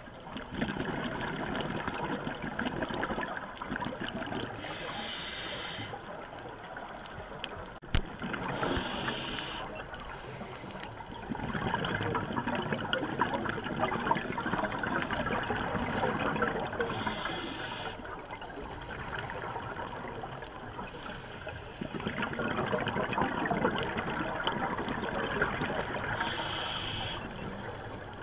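Scuba diver breathing through a regulator, heard underwater: long bubbling exhalations alternate with short hissing inhalations, four breaths in all. There is a single sharp click about eight seconds in.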